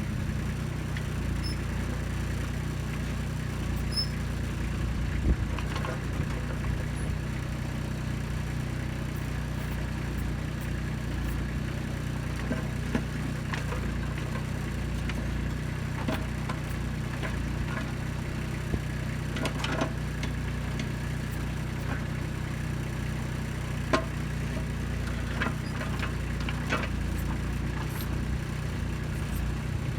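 Kubota B2630 tractor's diesel engine running steadily while the backhoe digs, with scattered clicks and knocks throughout.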